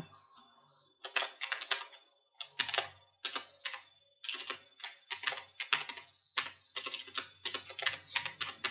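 Typing on a computer keyboard: runs of quick key clicks in irregular bursts with short pauses, starting about a second in.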